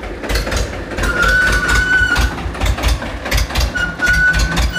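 Escort 335 tractor's three-cylinder diesel engine running at low speed as the tractor creeps forward, with a steady pulsing exhaust beat. A thin high squeal comes in twice, about a second each.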